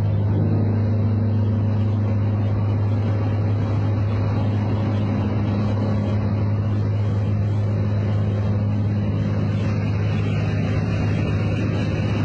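A steady low rumble with a constant deep hum, like a motor vehicle running, holding at an even level throughout.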